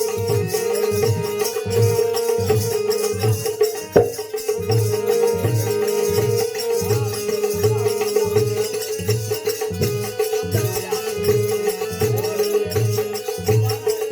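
Instrumental interlude of live devotional bhajan music: a steady held note under a regular drum beat, with jingling hand percussion throughout.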